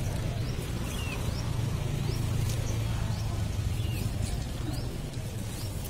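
Small birds chirping outdoors, with short, high, rising chirps about twice a second over a steady low hum.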